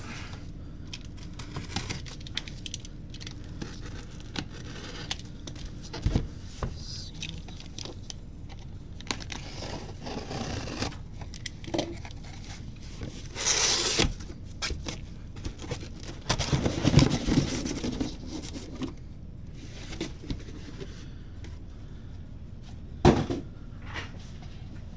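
A cardboard case being torn open and emptied by hand: packing tape tearing, cardboard flaps scraping and rustling. There is a loud tearing hiss about halfway through and a sharp knock near the end.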